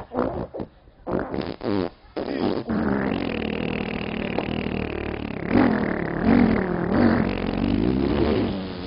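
A man's voice making drawn-out sounds without words: a few short bursts, then a long sound that wavers up and down in pitch in its second half, over a steady low hum.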